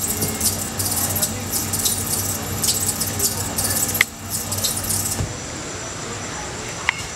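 Live experimental electronic noise: dense crackling, jangling high-pitched noise over a low hum. About five seconds in it cuts off suddenly, leaving a quieter hiss with faint steady high tones and a couple of small clicks.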